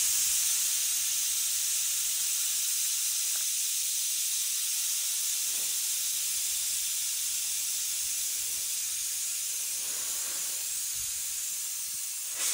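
Air hissing steadily out of a Jeep TJ's mud-terrain tire through the valve stem, held open with a valve tool, while the tire is aired down from 28 psi toward 12 psi for trail driving.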